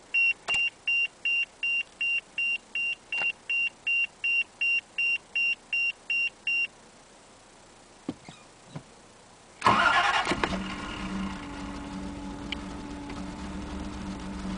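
A dashboard warning chime beeps steadily, about three times a second, for the first six or seven seconds and then stops, followed by a couple of soft clicks. Nearly ten seconds in, the 1983 Toyota Celica Supra's twin-cam straight-six cranks briefly and catches on a cold start, then settles into a steady idle.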